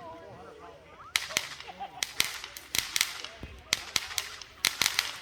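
Fireworks going off: sharp cracks and pops at irregular intervals, coming thicker near the end.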